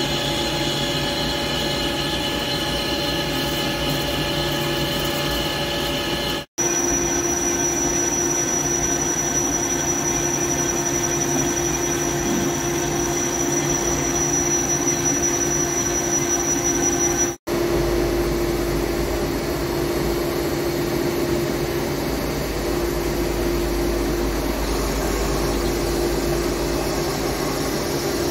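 Heavy CNC lathe running while turning a steel roll shaft: a steady machine hum with a high whine in the middle stretch. The sound breaks off abruptly twice and comes back with a different set of tones each time.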